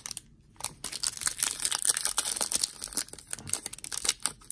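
Shiny plastic trading-card booster pack crinkling and crackling as it is handled and torn open at the top, starting about a second in.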